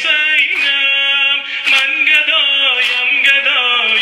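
A man singing a Persian noha lament, holding long, wavering notes. Rhythmic sina zani chest-beating strikes land about twice a second.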